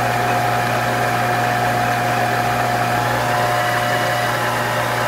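Monarch 10EE lathe running steadily under power, its spindle drive, belts and gear train giving an even hum with a constant tone over it, which sounds pretty good.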